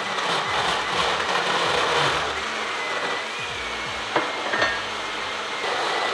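Compact personal blender running steadily as it blends a shake of soy milk and supplement powders, with a couple of knocks about four seconds in.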